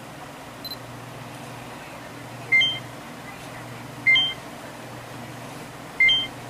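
Canon PowerShot N's operation beeps as its touchscreen is tapped: three short rising two-note electronic chirps, spaced a second and a half to two seconds apart.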